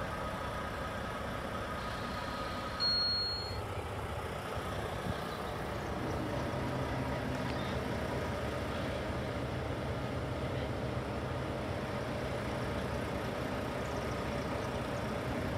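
Diesel engines of a line of stopped tractor-trailers idling, a steady low rumble that grows a little fuller about six seconds in. A short high beep sounds about three seconds in.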